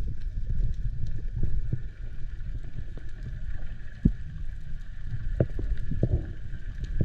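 Muffled, churning low water rumble with scattered knocks and clicks, one sharper knock about four seconds in.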